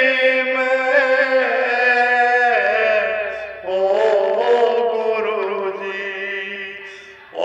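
A man singing a heli, a devotional song, unaccompanied, drawing out long held notes. He breaks for a breath about three and a half seconds in, then holds another long note that fades away near the end.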